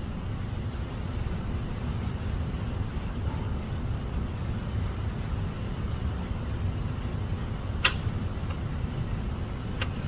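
Steady low rumble at a shooting range, with two sharp gunshot cracks about two seconds apart near the end.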